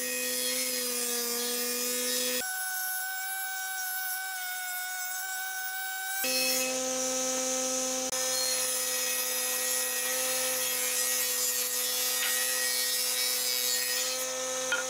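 Combination jointer-planer running with a steady whine while boards are fed across its cutterhead, the cutters shaving the wood. About two and a half seconds in, the lower part of the sound drops away and leaves a higher whine; it comes back about six seconds in.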